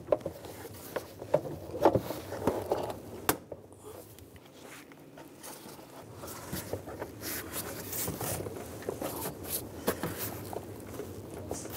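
Plastic air intake snorkel and rubber intake duct being slid and pressed into place over a throttle body: scattered scraping, rubbing and clicking of plastic, quieter for a couple of seconds in the middle.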